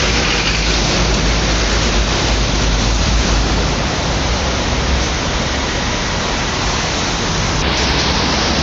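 Loud, steady rushing noise of road traffic going by, with a strong low rumble underneath.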